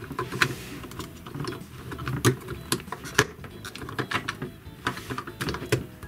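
Hard plastic toy parts clicking and knocking as hands handle a plastic toy dog figure and its motorcycle sidecar: a string of irregular sharp clicks.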